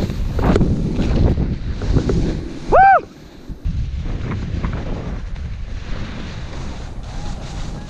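Wind buffeting an action camera's microphone and a snowboard sliding over packed snow on a downhill run. About three seconds in, one short, loud high-pitched call rises and falls in pitch.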